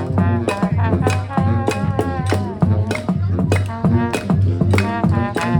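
Brass band playing a tune: horns over a steady drum beat, with a low bass note pulsing in time.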